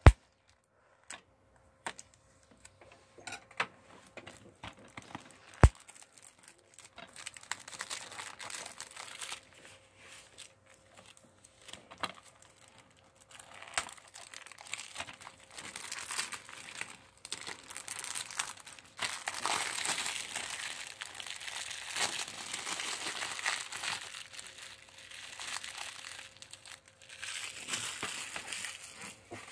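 Plastic shrink-wrap being cut open and peeled off a DVD case: a few sharp clicks in the first six seconds, then continuous crinkling and crackling of the film, loudest in the second half.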